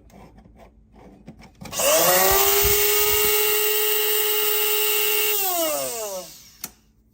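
Bodum Bistro electric blade coffee grinder's motor starting up with a rising whine, running steadily for about three and a half seconds, then winding down with falling pitch. A single sharp click follows near the end.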